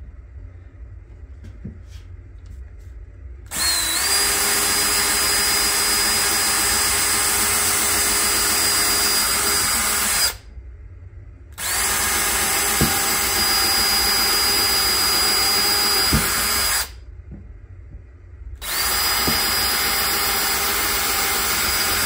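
DeWalt cordless drill pre-drilling holes through reclaimed wood: three runs of a steady motor whine lasting several seconds each, separated by short pauses. Each run rises briefly in pitch as the drill spins up.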